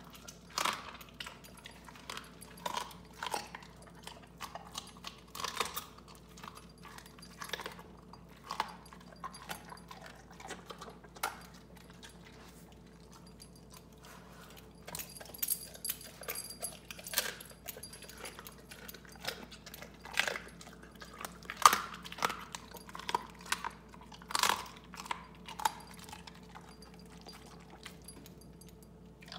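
Giant Schnauzer crunching and chewing raw chicken bones: irregular crunches and cracks with a short lull about halfway through.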